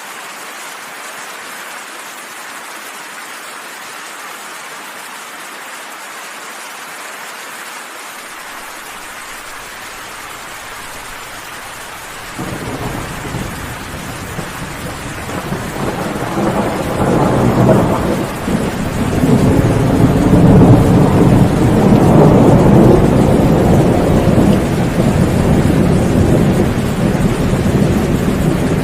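Steady rain falling, then about twelve seconds in a long roll of thunder starts suddenly and builds. The thunder is loudest in the second half and is still rolling at the end.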